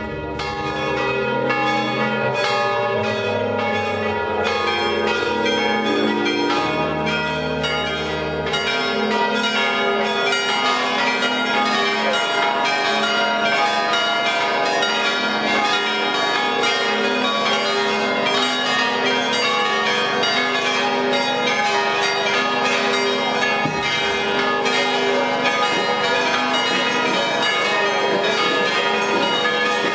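Church bells pealing rapidly and without pause, strike after strike overlapping and ringing on, with a run of low held notes underneath for the first nine seconds or so.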